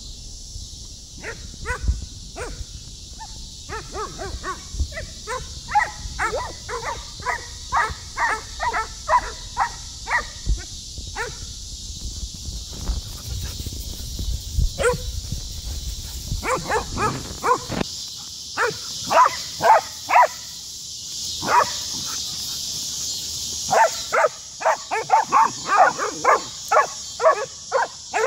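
Dogs barking in play: runs of short, sharp barks, about two to three a second, broken by pauses of a few seconds.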